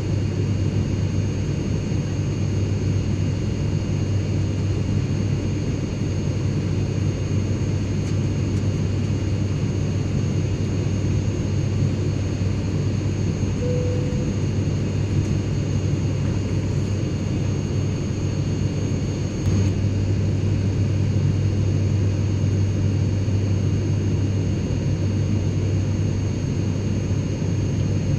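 Airliner cabin noise in flight: a steady drone of engines and airflow with a strong low hum and faint high whining tones.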